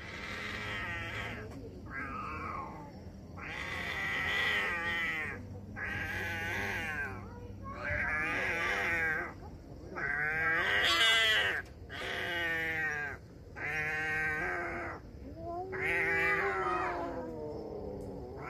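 Two domestic cats in a face-off give a string of long, drawn-out yowls, each one to two seconds, with a wavering pitch and short breaks between them. This is the threat caterwauling of a cat standoff.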